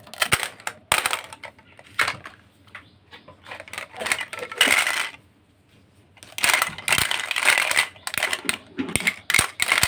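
Small plastic toy pieces being handled, with many sharp clicks and clatters and a few longer stretches of dense rattling and scraping. There is a short pause about halfway through.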